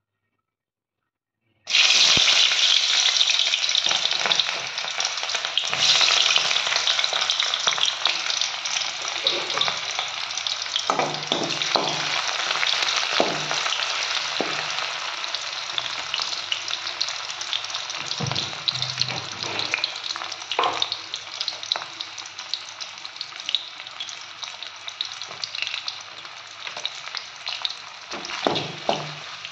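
Sliced onions sizzling in hot oil in a wok, stirred and scraped now and then with a slotted spatula. The sizzle starts suddenly about two seconds in, loudest at first, and slowly dies down.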